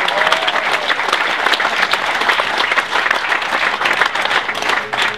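Crowd applauding with steady clapping and some cheering, cutting off sharply at the very end.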